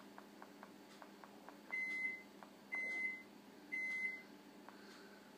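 Microwave oven beeping three times, evenly about a second apart, each beep about half a second long at one high pitch: the end-of-cycle signal. A faint rapid ticking comes before the beeps.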